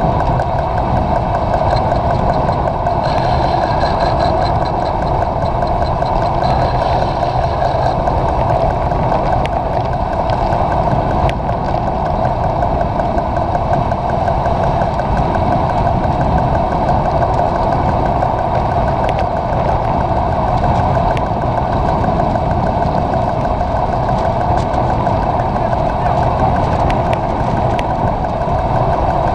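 Steady rush of wind and tyre noise picked up by a camera mounted on a road bike's handlebars while riding at speed on a wet road.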